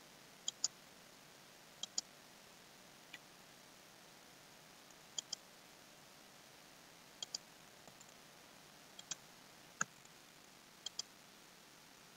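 Computer mouse button clicking about eight times, a second or two apart, most clicks a quick press-and-release double tick, over a faint steady hiss.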